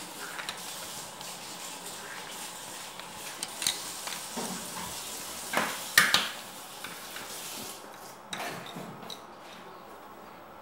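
Colored pencils being handled: rattling and rustling against each other in a fabric pencil case as they are rummaged through, with a few sharp clicks of pencils knocking together or on the table, the loudest about six seconds in.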